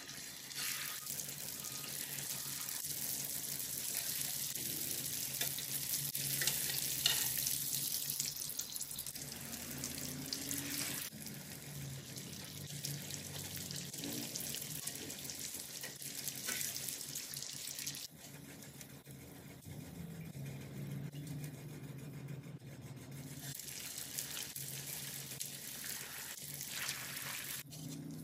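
Hot oil sizzling steadily as spring rolls (lumpia) shallow-fry in a skillet. The sizzle drops off about two-thirds of the way through and picks up again near the end.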